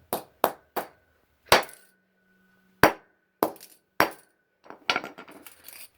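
A fidget spinner being struck hard again and again: sharp, irregular knocks with a clinking, metallic edge, some leaving a faint ring, and a quicker run of smaller knocks near the end.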